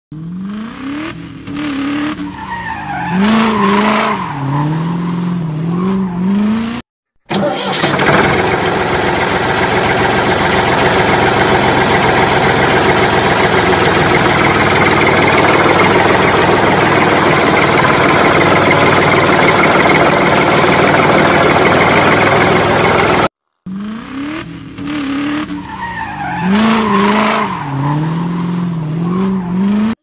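Car engine sound effects: an engine revving, its pitch rising and falling, for about seven seconds. After a brief cut it becomes a loud, steady engine drone for about sixteen seconds. After another cut the same revving passage plays again.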